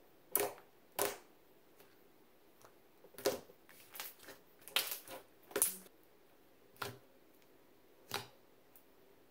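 Thick glossy slime being pressed and poked by fingers, giving about ten crisp pops and clicks at irregular intervals, bunched together in the middle.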